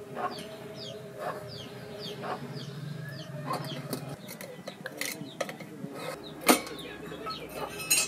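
Chickens clucking and small birds chirping again and again, with scattered knocks and clinks from a steel tiffin box as it is lifted out of the pan and its lid is pried open with a knife; the sharpest knock comes about six and a half seconds in.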